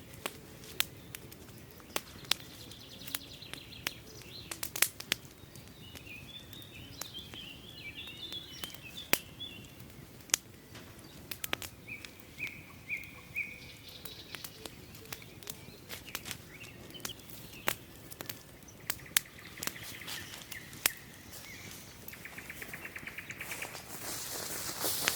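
Songbirds chirping and trilling, with a fast trill near the end, over quiet outdoor background. Sharp clicks and snaps sound irregularly throughout, louder than the birdsong.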